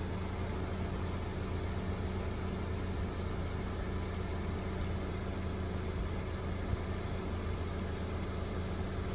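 Steady low engine hum, like an idling engine heard from a distance, even and unchanging throughout.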